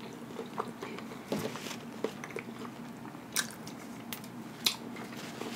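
Close-miked chewing of a mouthful of burger, with mouth smacks and sharp wet clicks now and then; fingers are licked with a smack about four seconds in.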